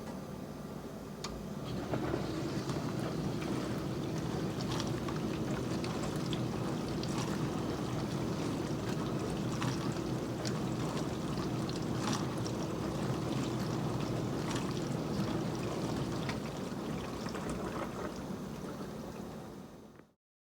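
Miele Incognito dishwasher's circulation pump starting about two seconds in over a steady hum, with water spraying and splashing inside the tub; it runs steadily, then dies away near the end. The pump keeps cutting out early in the cycle, which the repairman takes for a fault in the pump.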